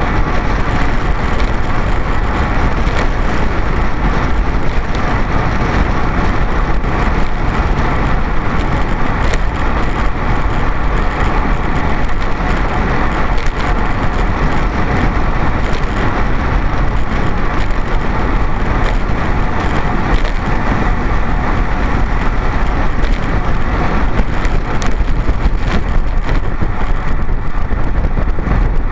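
Steady, loud wind rush buffeting a bicycle-mounted camera's microphone as the road bike rides at race speed.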